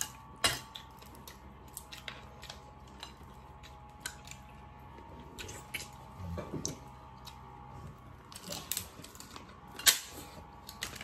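Scattered clicks and cracks of steamed lobster and crab shells being picked apart by hand and with a metal seafood pick, with a couple of sharper knocks, the loudest near the end.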